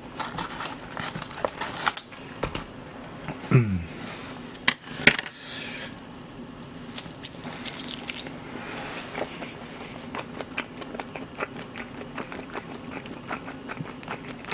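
A person eating braised pig's trotter (jokbal) close to the microphone: chopsticks clicking against plastic takeout containers, then wet chewing with many small mouth clicks and lip smacks.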